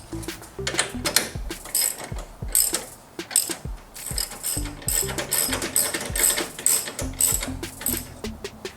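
Ratchet wrench clicking in short runs of quick clicks as the 16 mm bumper bolts are tightened down.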